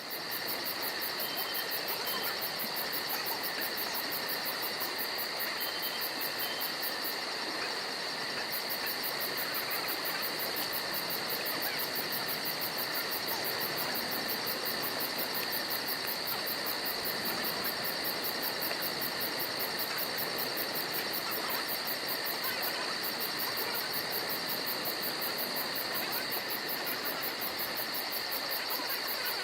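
Steady insect chorus: a continuous shrill buzzing in two pitches, with a fast, even trill pulsing above it.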